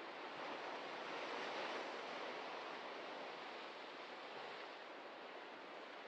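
Ocean surf washing on the shore: a steady rush of waves that swells about a second in and slowly eases off.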